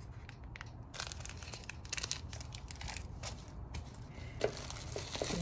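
Packaging being handled and rummaged through: irregular crinkling and rustling of paper and plastic wrapping, with short crackles throughout.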